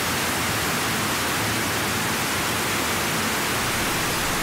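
Steady, even hiss like static, level throughout, with no clicks, tones or calls standing out.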